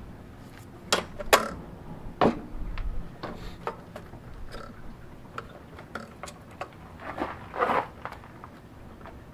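Handling noises from a printer teardown: scattered clicks and knocks of metal and plastic as a cordless driver and the printer's boards and cables are handled. The sharpest knocks come about one and two seconds in, with a brief scrape near the end.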